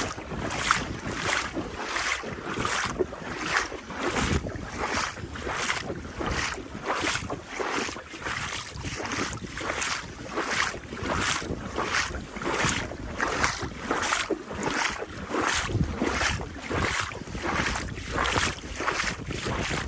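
Footsteps of a person in boots wading through shallow floodwater, splashing at an even walking pace of about two steps a second, with wind buffeting the microphone.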